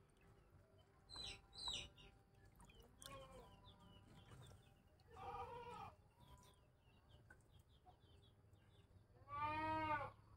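Two drawn-out animal calls, one about five seconds in and a louder one near the end, over faint, scattered small bird chirps.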